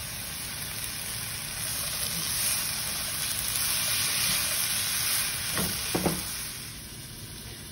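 Green peas sizzling in hot oil as they are tipped into a pan of frying spiced onion stuffing and stirred with a wooden spatula. The sizzle grows louder a couple of seconds in and eases off near the end.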